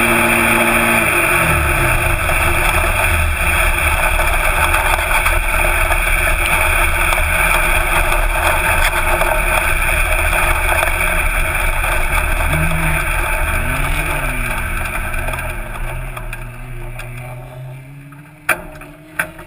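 Nissan VQ30 twin-turbo V6 of an off-road buggy heard from on board. The revs drop about a second in, then it runs at low revs with a few small rises. The sound fades away over the last few seconds, with a couple of sharp knocks near the end.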